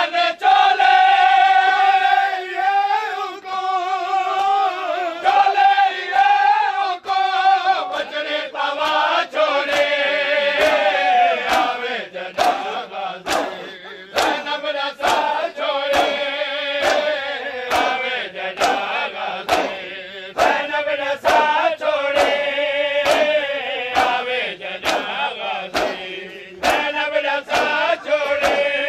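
A group of men chanting a nauha together in Shia matam, while their open hands strike their bare chests in a steady beat of sharp slaps, about three every two seconds.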